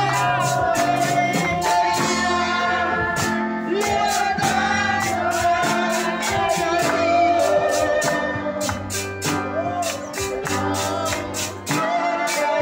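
Worship music: singing over a band with held bass notes and a steady percussive beat.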